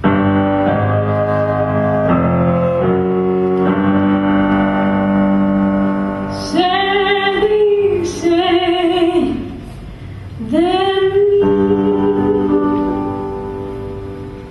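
Grand piano playing sustained chords, joined about six seconds in by a woman singing long, held phrases over the piano accompaniment.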